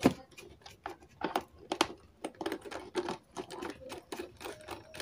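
Irregular clicks and taps of hands handling the parts of a rechargeable emergency light during repair, with a sharper knock right at the start.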